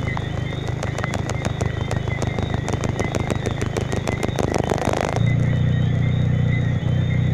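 Rain falling, drops ticking sharply on a hard surface over a steady low hum. The drops thicken into a dense burst just before five seconds in, then the ticking cuts off suddenly and the low hum gets louder.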